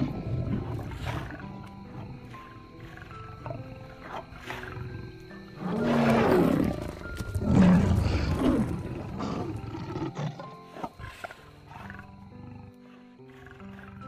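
Lions growling and roaring in a fight, with two loud bursts about six and eight seconds in. Background music with held notes plays underneath and comes to the fore as the fight sounds die away near the end.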